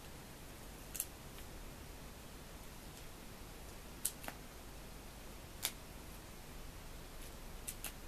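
A handful of short, sharp clicks and ticks, about six, the loudest two in the middle: small square mosaic stickers being picked off a sheet and pressed onto a cardboard picture. A faint steady hum runs underneath.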